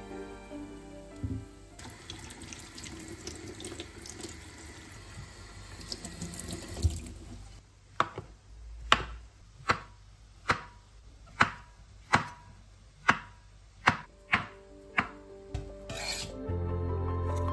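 A kitchen tap runs for several seconds. Then a knife slices button mushrooms on a wooden cutting board: about a dozen even cuts, a little under a second apart.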